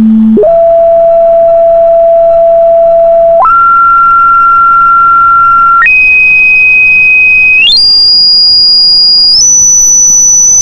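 Pure sine tone from an online tone generator, starting low at 220 Hz and stepped up in pitch in five jumps, each held steady for one to three seconds, ending as a shrill, piercing high whistle.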